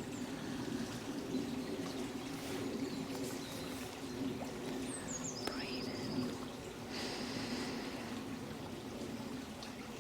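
Running water trickling steadily, with a few short high bird chirps about halfway through.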